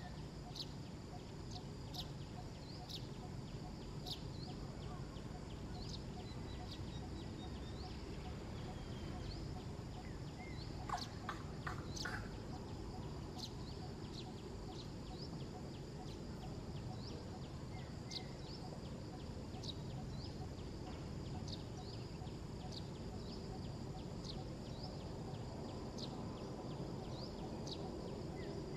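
Outdoor ambience with a steady low rumble. Short high chirps repeat about once a second, and a brief burst of shrill animal calls comes about eleven seconds in.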